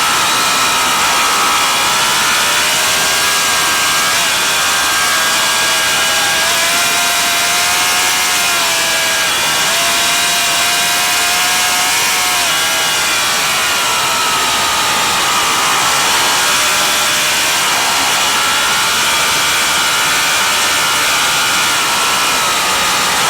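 Racing motorcycle engine running hard at high revs, its pitch rising and falling with the throttle and gear changes, over a steady rushing hiss.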